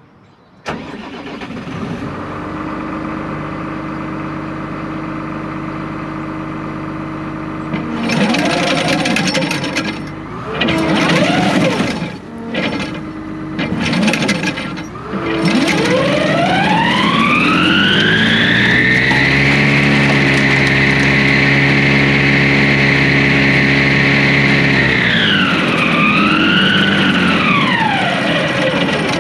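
Self-propelled swather's engine starting and idling, revved up several times, then the header drive spinning up with a whine that rises over about four seconds, holds steady, wavers once and winds down near the end. The head is being run to try to clear a plugged auger; it spins but a wad of crop stays jammed in it.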